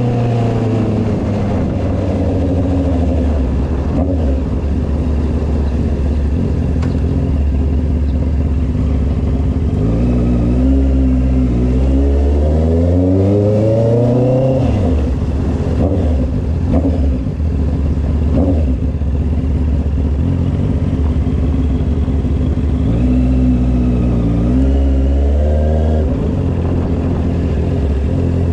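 Honda CB650R's inline-four engine heard from the saddle while riding at low street speed. It drops in pitch at the start and runs steady and low. About ten seconds in it climbs in pitch under throttle for four seconds and cuts back, then climbs again briefly near the end.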